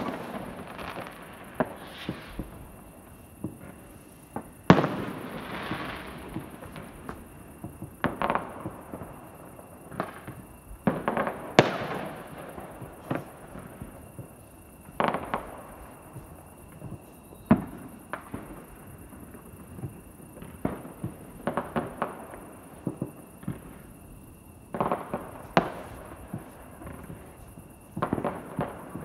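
Fireworks going off: irregular sharp bangs, one after another, each with a long echoing tail. The biggest come a few seconds in and around the middle.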